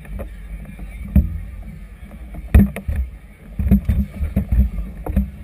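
Choppy river water slapping against the hull of a moored vessel, heard muffled as irregular low thumps and knocks, the sharpest about a second in and again around two and a half seconds in.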